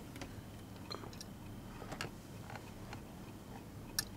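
Faint ticking, about one tick a second, over quiet room tone.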